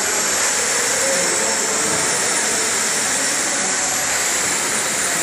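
Steady loud hiss of factory machinery, high-pitched, with a faint whine on top that slowly rises and falls.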